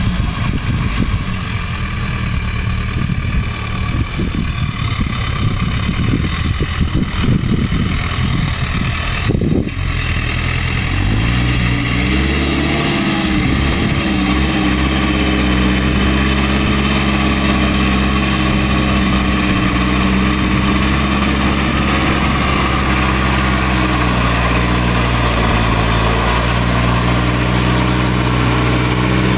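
Zetor 7340 tractor's four-cylinder turbo diesel running steadily while pulling a cultivator through meadow ground, growing slightly louder as the tractor comes close. For the first ten seconds or so, wind buffeting the microphone covers the engine.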